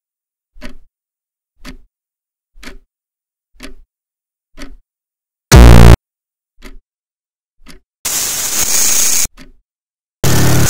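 Clock-like ticking, one sharp tick about every second. A little past halfway a short, very loud distorted buzz cuts in, and near the end come bursts of harsh static.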